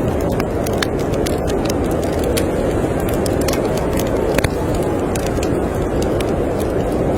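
Steady storm wind blowing with a low rush, while a wood fire crackles with frequent small, sharp pops.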